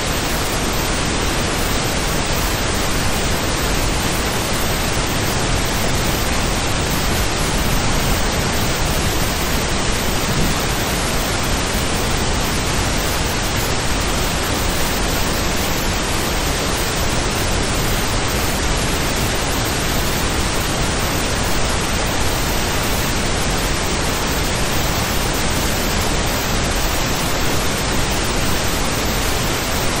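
Steady white noise for sleep: an even, unchanging hiss with no rises, falls or breaks.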